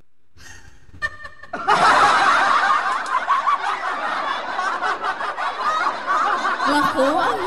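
A woman laughing heartily and at length, starting about a second and a half in after a brief lull.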